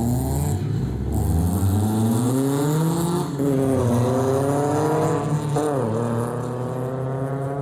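BMW 318ti Compact race cars accelerating away, their engines revving up through the gears with two upshifts, about three and five and a half seconds in, then running at a steady pitch.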